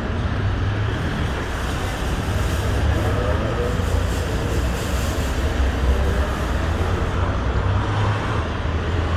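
Road traffic: cars and heavier vehicles such as trucks and buses running past with a steady deep engine rumble and tyre noise, while an engine note wavers in pitch in the middle of the stretch.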